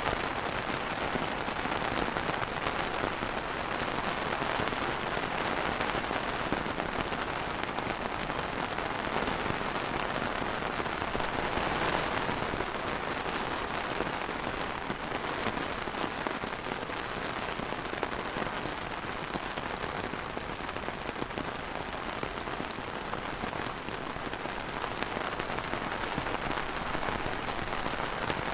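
Steady rain falling, a dense even patter of drops on hard surfaces.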